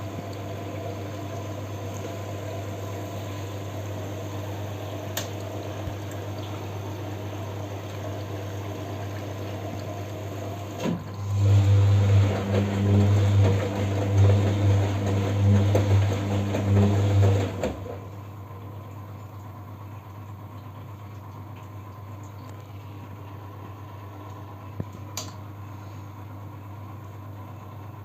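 Siemens washing machine during its final rinse, running with a steady hum and the rush of water. About eleven seconds in, a much louder deep hum starts with a knock and runs for about seven seconds, then stops abruptly. After that, a quieter low hum is left.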